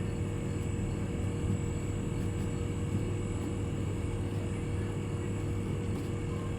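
Outdoor unit of an LG inverter split air conditioner running steadily in pump-down, the compressor drawing the refrigerant back into the outdoor unit: an even hum with a thin high whine over it.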